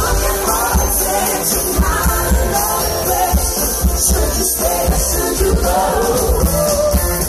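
Live pop-rock band playing loudly through a concert PA, with a woman singing lead over the band.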